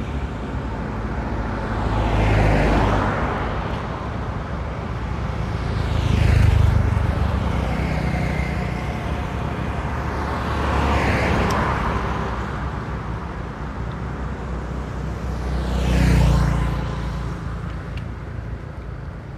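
Road traffic: vehicles passing one after another on a paved road, four passes that each swell and fade, over a steady low rumble.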